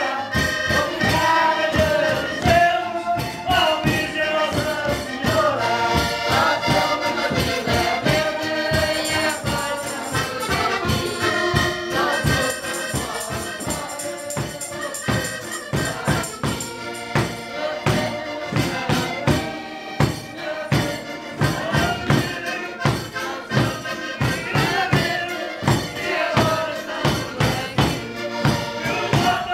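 Live band music: accordion and electric guitar with singing over a steady, quick beat.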